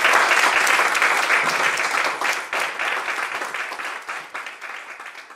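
Congregation applauding, the clapping gradually fading away over the second half.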